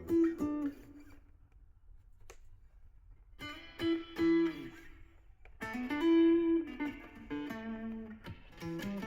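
Parker PDF70 guitar being played: single picked notes and short melodic phrases that ring on. After the first notes there is a pause of about two and a half seconds, and then playing resumes.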